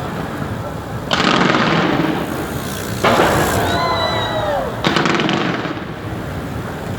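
Fireworks bursting overhead: three sudden loud booms, each followed by a long crackling hiss. After the second boom comes a rising-then-falling whistle-like tone.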